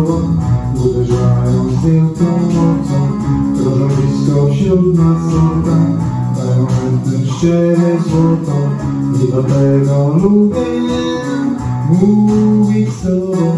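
Two electric guitars playing an instrumental passage of a song, with a couple of notes sliding upward near the end.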